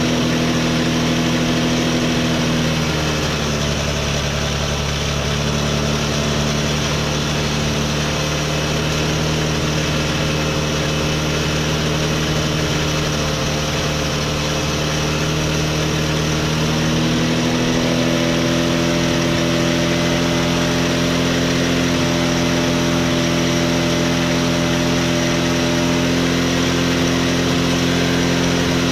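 Scooter's small engine idling steadily while a carbon-cleaning liquid is injected into it; the idle sags to a lower pitch about three seconds in and picks back up to a faster idle around seventeen seconds in.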